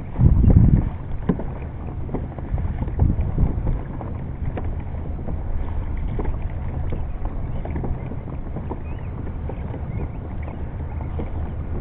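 Kayak on open water: water lapping and splashing against the hull with wind buffeting the microphone, a louder rush in the first second and small knocks throughout.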